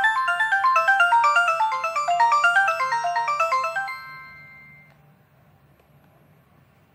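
Samsung polyphonic ringtone, a synthesized MMF melody, playing from a ZTE Z222 phone's speaker. It is a fast run of short notes that ends about four seconds in with a brief fade, followed by only a faint low hum.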